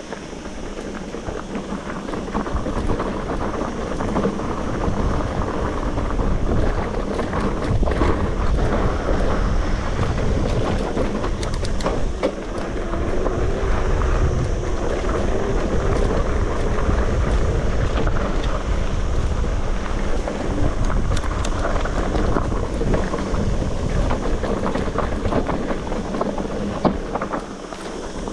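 Mountain bike riding over a rough dirt trail: wind rumbling on the microphone over tyre noise and a steady rattle of clicks from the bike. It builds over the first few seconds, then stays loud.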